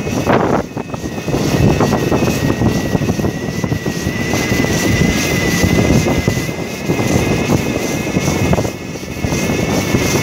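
Wind rushing and buffeting on the microphone of a moving e-bike, with a steady high whine from its electric motor.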